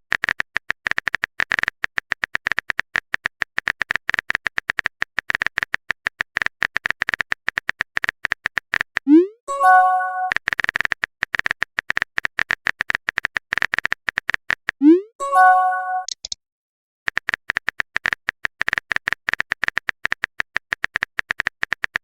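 Rapid clicking of a phone-keyboard typing sound effect, broken twice by a short rising swoop and a bright chime, the pop of a chat message arriving. The clicking stops briefly after the second chime, then resumes.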